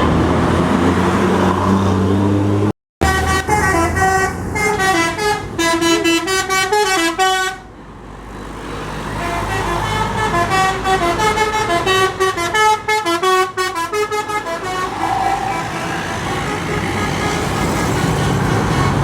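Tour bus 'telolet' horn, a multi-trumpet musical horn, playing a quick tune of changing notes. It sounds twice: first from a few seconds in for about four seconds, then again after a short pause. Bus engine and traffic noise can be heard around the horn.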